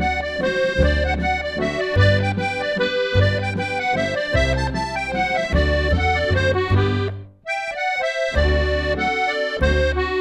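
Solo accordion playing a traditional Austrian Ländler folk dance tune: a melody over a steady oom-pah bass and chord accompaniment. The music breaks off briefly about two-thirds of the way through, then picks up again.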